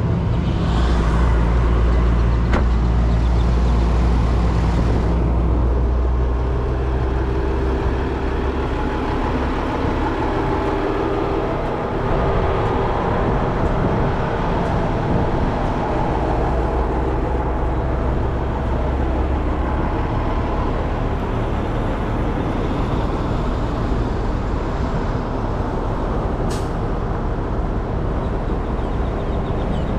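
Truck engine running steadily with a low hum that shifts in pitch a couple of times.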